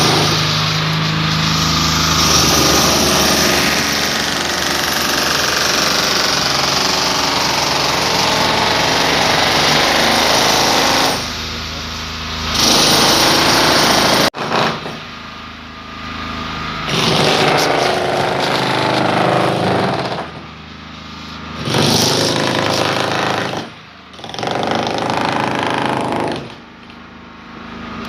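Electric demolition hammer chipping concrete in several long spells, each broken off by a short pause.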